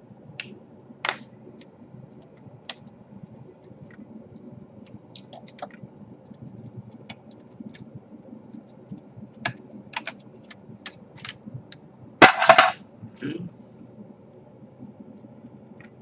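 Scattered small clicks and taps of a screwdriver and plastic and metal parts as a Dell Latitude E5410 laptop's underside is taken apart, with a louder half-second clatter about twelve seconds in.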